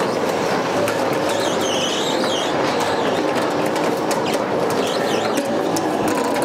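A winch motor runs steadily, pulling a rusted 1952 Chevy 3100 pickup onto a steel car-hauler trailer. Metal clicks and rattles come from the truck rolling and dragging up the steel deck.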